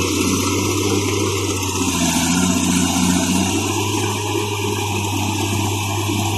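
Heavy diesel engines of a Cat excavator and a crawler bulldozer running steadily while the excavator handles a large log, with an engine note that lifts briefly about two seconds in.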